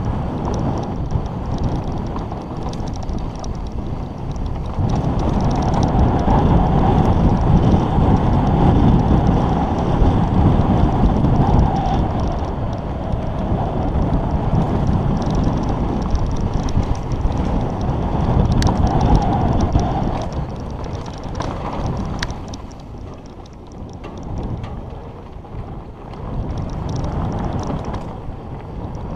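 Wind buffeting a mountain biker's camera microphone at speed, over the rumble of the bike's tyres rolling down a dirt trail. It grows louder about five seconds in and eases off for a few seconds near the end, with a few sharp clicks.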